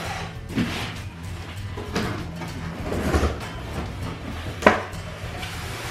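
Cardboard kit box being handled as its lid is lifted off: scraping and rubbing of cardboard with a few soft knocks, and one sharp knock a little under five seconds in.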